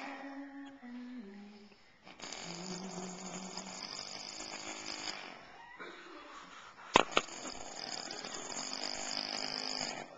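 Man snoring in his sleep: the tail of one snore at the start, then two long, raspy snores of about three seconds each. Two sharp clicks come in the pause between them, about seven seconds in.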